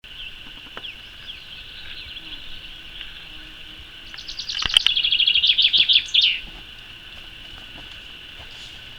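Wild birds singing outdoors: a steady high background chorus with scattered chirps, and a loud, fast run of repeated chirping notes from about four to six seconds in. A single sharp click falls just as the loud run begins.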